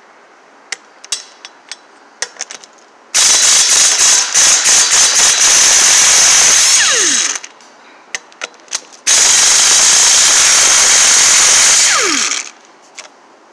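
Matco angle impact wrench spinning lug nuts off a wheel in two runs of a few seconds each. The first starts with a quick rattle of hammering, and each run ends in a falling whine as the tool winds down. Light clicks and taps come before and between the runs.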